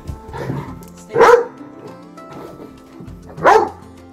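Great Dane barking twice in play, about a second in and again near the end, over background music.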